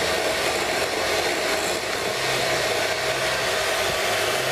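Electric hand mixer running steadily, its beaters creaming butter and sugar in a glass bowl, an even whir with a constant whine.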